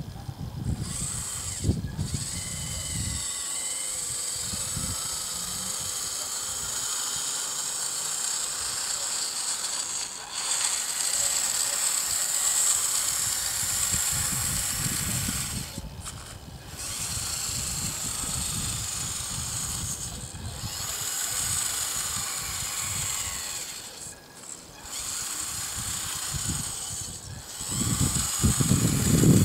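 Electric drive motor and gearing of a radio-controlled Bruder CAT mini wheel loader whining as it drives and manoeuvres, cutting out briefly several times between moves, with a low rumble at times.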